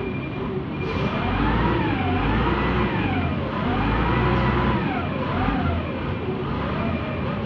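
Diesel engine of a Kobelco RK160-2 rough-terrain crane revving up and falling back, four times over, as the throttle is worked to drive the crane's hydraulics.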